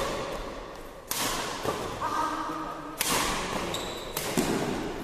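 Badminton rackets striking the shuttlecock in a doubles rally: three sharp hits, the last two closer together, each trailing off in the hall's echo.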